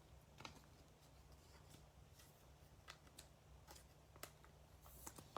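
Near silence with faint, scattered clicks and light rustles of trading cards being handled and sorted, over a low hum.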